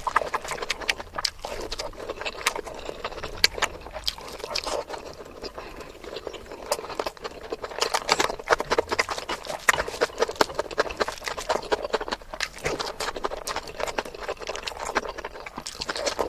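Close-miked chewing and lip smacking as chicken curry is eaten, a dense run of irregular wet clicks and smacks.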